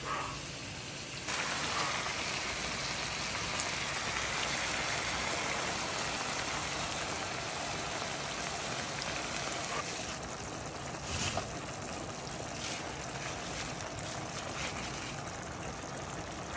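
Shrimp, mushrooms and tomato sauce sizzling in a frying pan: a steady crackling hiss that eases a little after about ten seconds, with a few light clicks in the second half.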